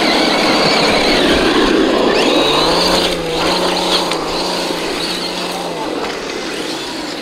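Traxxas TRX-6 Mercedes-Benz 6x6 RC truck's electric motor and gears whining over a rough running noise. The pitch wavers up and down, with a steadier low whine through the middle.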